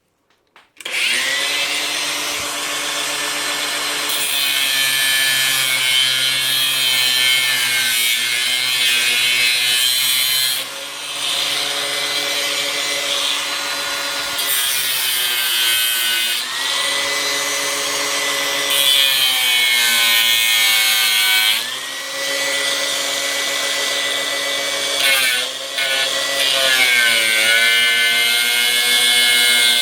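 Electric power tool cutting into the plastic case of a lead-acid car battery around the positive terminal. The motor's pitch sags under load and recovers several times as the cut goes on, over a rasping, sawing noise.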